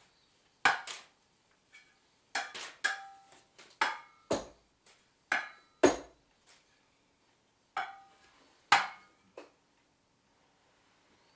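Sparse, irregular percussion: about ten sharp strikes with silences between them. Several leave a brief metallic ring, consistent with a small hand-held cymbal being struck. Two strikes near the middle land as deeper thuds.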